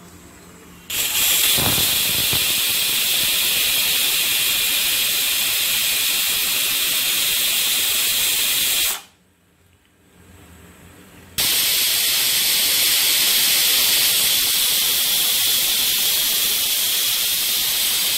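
Shiv Ganga aluminium pressure cooker whistling: steam hisses loudly out past the weight valve for about eight seconds, stops for about two seconds, then whistles again for about eight more. Each whistle signals that the cooker is at full pressure, and the cook counts three of them to time the rice.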